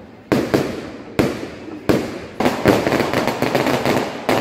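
Fireworks display: several sharp bangs in the first half, each with a short decaying echo, then from about halfway a dense crackling of many quick pops with no pause.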